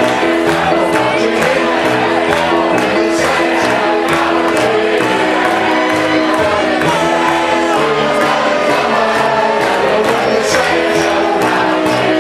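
A large crowd singing a spiritual together in unison, with live instrumental backing; the music is loud and continuous.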